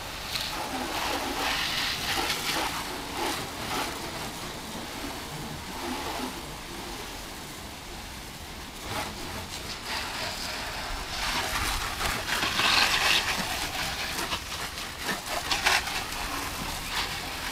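Water jetting from a garden hose spray nozzle and splattering on a car's bodywork and the wet concrete path: a steady hiss and patter that swells and eases as the spray moves over the car.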